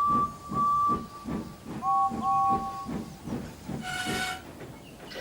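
Steam locomotive chuffing steadily at about three beats a second while its whistles blow: a single-note whistle twice, then a lower two-note whistle twice. A short hissing blast comes near the end.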